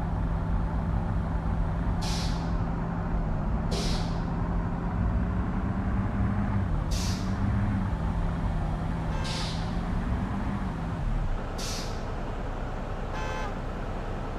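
Heavy truck's diesel engine running under load, its note wavering slightly and then dropping off near the end. Five short hisses of air from the air brakes come a few seconds apart, and there is a brief squeal near the end.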